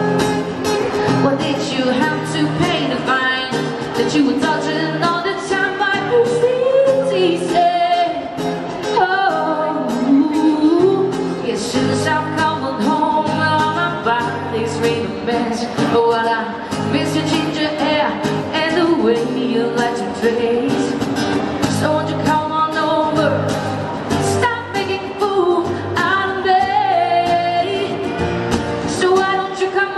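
A woman singing a pop song live into a handheld microphone, accompanied by acoustic guitar.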